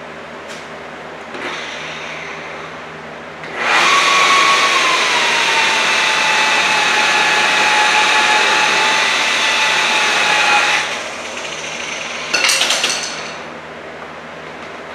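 Electric rotary buffer with a wool pad spinning up and running for about seven seconds with a steady whine that dips slightly in pitch just after it starts, then stopping. Near the end comes a short scratchy burst.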